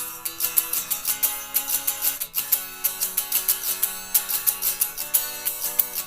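Guitar strumming chords in a steady, fast rhythm, several strokes a second.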